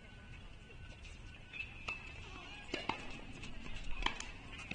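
Quiet outdoor tennis-court ambience with a few sharp knocks of tennis balls being struck and bouncing, mostly in the second half.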